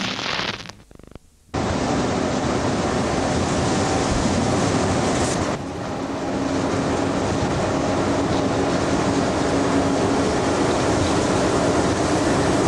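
Steady running noise of a moving locomotive heard from inside its cab, with a faint steady hum under it; it comes in after a short break about one and a half seconds in.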